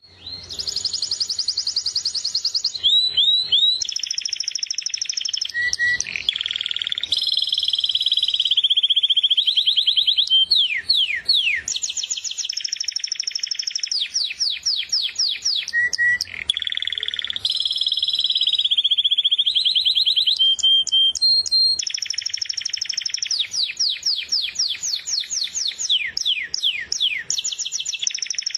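Finch song, a long continuous run of rapid trills, repeated notes and quick sweeping glides, with only brief pauses. It starts suddenly out of silence.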